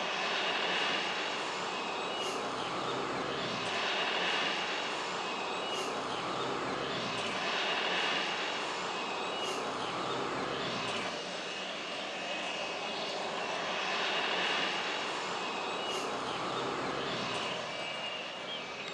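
CASA C-295's twin Pratt & Whitney PW127G turboprop engines running as the transport taxis, a steady engine sound with a high whine that swells and fades about every four seconds.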